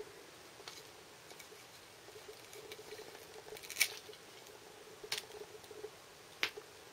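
A few small sharp clicks and taps, the loudest about four seconds in, with others about a second and a half apart, over a faint steady hum.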